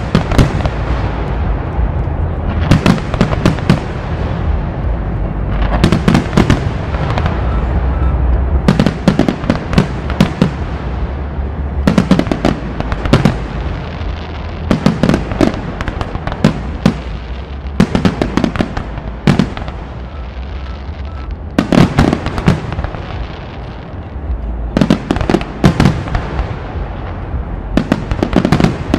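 Fireworks display: aerial shells bursting in clusters of sharp bangs about every three seconds, over a steady low rumble.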